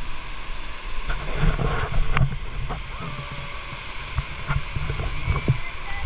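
Steady rush of water at a waterfall pool, with wind rumbling on the microphone and a few small knocks and splashes of water close by.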